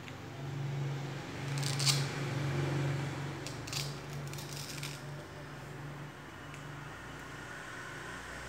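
A few light clicks and taps of small hard objects being handled: one sharp click about two seconds in, then a short cluster around four to five seconds in, over a low steady hum.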